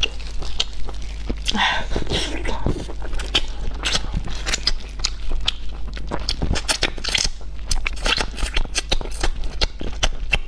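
Close-miked eating sounds of a person tearing and gnawing braised pork ribs: wet chewing, lip smacks and many short sharp clicks as meat is pulled off the bone.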